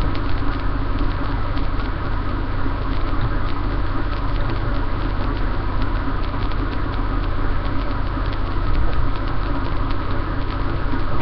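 Steady buzzing hum and hiss of a webcam microphone's noise floor, with faint light clicks scattered through it.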